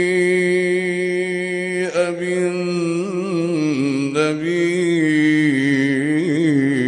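A male voice reciting the Quran in melodic tajwid style. A long held note stays on one steady pitch for about two seconds, then winds up and down through melodic ornaments without a break.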